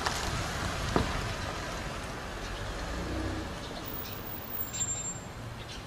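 Car driving along a residential street, a steady hiss of tyre and engine noise, with a brief sharp click about a second in.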